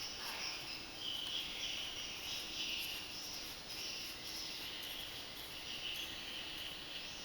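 Insects chirping steadily in a high-pitched chorus that swells and fades every second or so, over a faint steady low hum.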